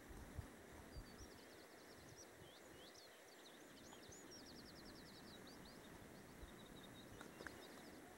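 Near-silent ambience with a small songbird singing: high, quick chirps and two rapid trills in the middle, over a faint steady hiss.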